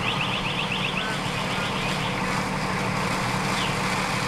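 Parked fire truck's diesel engine idling steadily. A rapid run of short, high, rising chirps sounds over it in the first second, and one more comes near the end.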